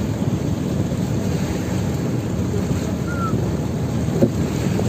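Steady low rumble of wind and sea on the microphone aboard an outrigger fishing boat, with a short faint high chirp about three seconds in and a single sharp knock near the end.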